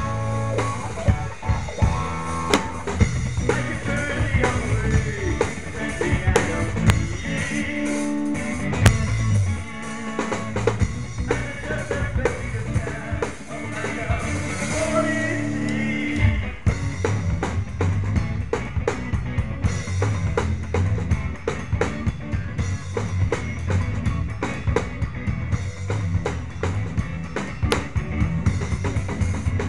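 Live rock band playing: electric guitar, bass guitar and drum kit keeping a steady beat, with a man singing into a handheld microphone.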